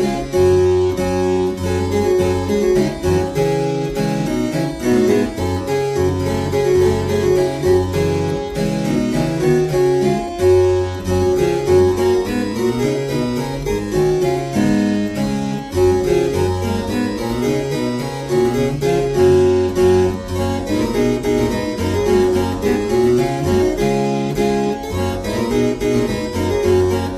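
Harpsichord music: a continuous instrumental piece of quick, changing keyboard notes.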